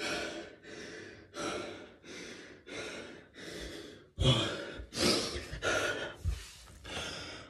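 A man panting hard and gasping for breath, worn out after a set of 100 one-pump burpees, about one and a half breaths a second; the breaths grow louder and rougher around the middle.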